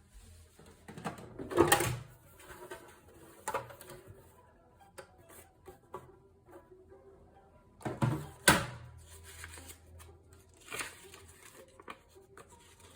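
Hermes Baby portable typewriter being handled: scattered mechanical clicks and clunks, not a typing rhythm, with two louder knocks, one about two seconds in and one about eight and a half seconds in.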